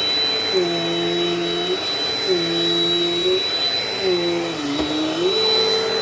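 Dirt Devil Dynamite vacuum cleaner running with a steady high whine. Its lower hum shifts in pitch in a pattern that repeats about every second and a half, then holds steady near the end.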